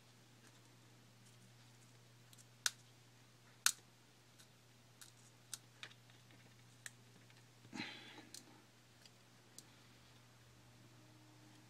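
Glue on an iPhone 4 screen assembly cracking loose as the screen is pried from its frame: scattered sharp clicks and ticks, two louder snaps early on and a short crackle about eight seconds in, over a faint steady hum.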